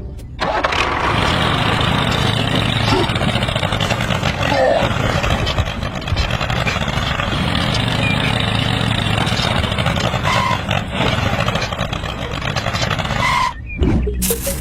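A small engine running steadily, stopping shortly before the end.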